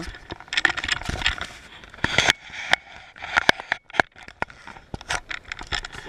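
Close handling noise: rubbing and scraping with many irregular sharp clicks right against the action camera's microphone.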